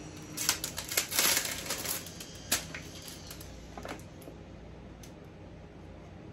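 Plastic packaging being handled: a quick run of crinkling and sharp clicks over the first two and a half seconds, then a couple of faint ticks.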